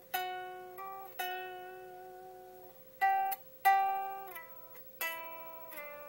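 Unplugged Gibson Les Paul electric guitar: about six single notes plucked on the G string, each ringing and fading, with some slid down to a lower fret so the pitch steps down. The unamplified solid-body strings give a thin, small sound.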